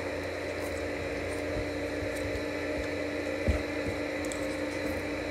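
Faint slurping and chewing of spicy instant noodles over a steady hum, with a soft knock about three and a half seconds in.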